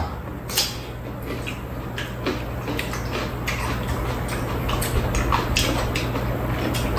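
People chewing pieces of peeled giant Korean melon (chamoe), with small, irregular wet crunches and mouth clicks, over a steady low hum.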